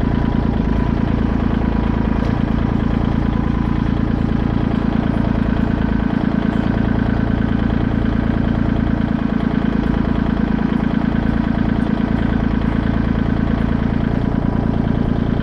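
Kubota tractor's diesel engine running steadily.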